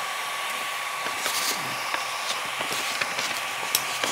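Steady whir of an Ender 3D printer's hot-end cooling fan, carrying a faint steady tone, with a few light clicks as the print head is slid along its rail by hand with the stepper motors disabled.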